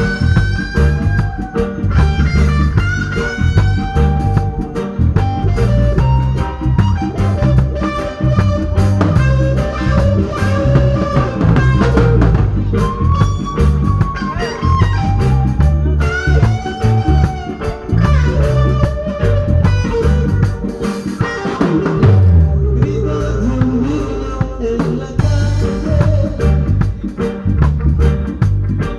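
Band music with drum kit, bass and guitar over a steady beat, with a lead melody line.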